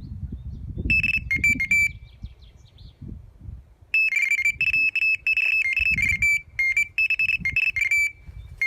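Electronic carp bite alarms sounding a fast string of high beeps, stepping between two close pitches: a short burst about a second in, then a long, nearly unbroken run from about four seconds. It is the sign of a carp taking line on a run. A low rumble runs underneath.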